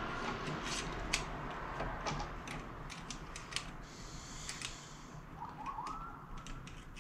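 Light metallic clicks and ticks of hand tools working a jammed screw in a folding bike's frame hinge, with a short scraping rub about four seconds in. A few short rising chirps sound near the end.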